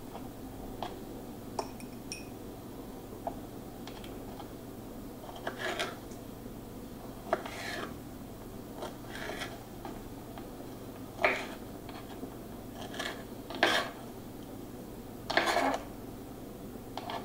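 Kitchen knife cutting canned pineapple rings on a wooden cutting board: irregular light knocks of the blade on the board, with a few louder short scraping strokes.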